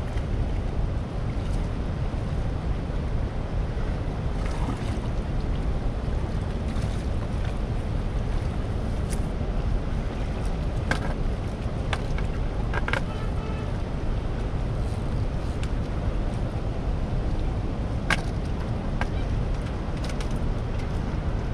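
Steady rush of churning tailwater below a dam, a dense low noise that never lets up, with a few faint clicks partway through.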